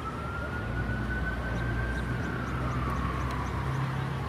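Emergency vehicle siren wailing: one slow tone that rises and falls over a few seconds, over a steady low rumble of traffic or engine.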